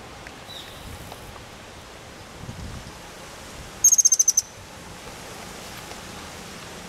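A perched hummingbird gives a quick, high-pitched chittering trill of about eight notes in half a second, a few seconds in, over a steady background hiss.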